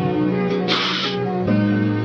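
Background music with plucked-string melody, with a short hissing swish about a third of the way in.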